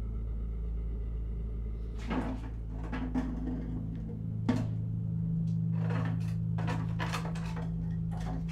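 A door being handled and shut: a run of clunks and clicks at uneven intervals, starting about two seconds in, over a low steady drone.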